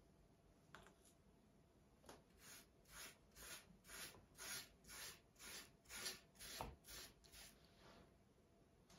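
Faint scratchy strokes of a flat paintbrush brushed back and forth along a wooden slat, about two strokes a second, laying on red paint.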